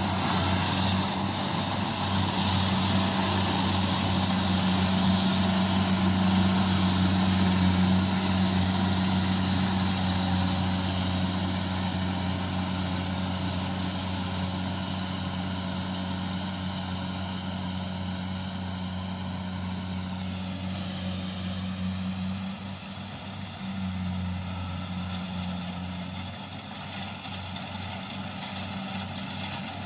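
Kubota rice combine harvester's diesel engine running steadily under load as it cuts and threshes rice, with a steady drone and a hiss from the threshing. The sound grows fainter as the machine moves away, with a short dip about two-thirds through.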